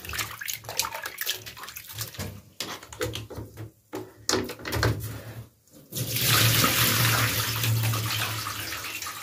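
Water splashing and knocking in a bathtub where beef tripe is soaking, then about six seconds in the bath tap is opened and water runs steadily into the tub.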